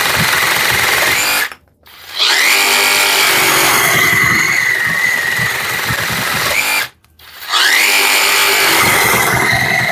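Parkside Performance PSSAP 2028 A1 20 V cordless reciprocating saw running while cutting. It stops twice, about a second and a half in and again about seven seconds in, and each time the trigger is pulled again it spins back up with a rising whine.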